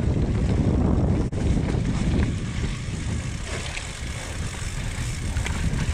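Wind rushing over the microphone and tyres rolling over loose dirt as a downhill mountain bike descends at speed; the rush eases a little after about two seconds.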